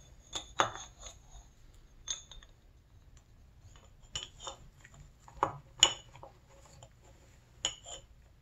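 Irregular light metallic clicks and clinks, several with a brief high ring, as a piston, its wrist pin and the oiled needle bearing are handled and fitted onto a connecting rod.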